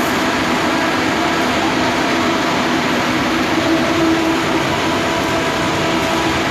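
Steady loud machine noise with a faint hum in it, unchanging throughout, inside a large steel tank during weld repair work.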